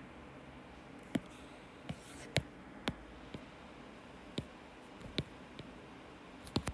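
Stylus tapping and writing on a tablet screen: about ten sharp, irregular taps over a low steady background.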